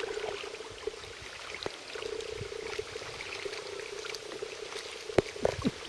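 Water trickling and splashing lightly around a kayak, under a steady hum, with a sharp click about five seconds in.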